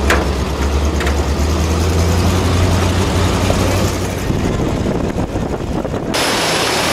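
Open shuttle truck's engine running with a steady low rumble under road and wind noise as it drives along. The upper hiss changes abruptly about six seconds in.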